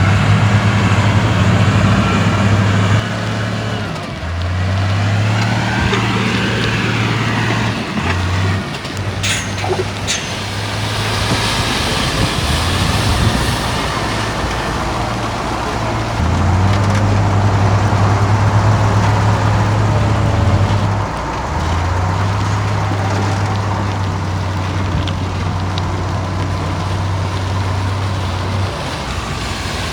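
Heavy diesel earthmoving machinery running under load, its low engine note stepping up and down in pitch as the revs change, with a sharp clank about nine seconds in.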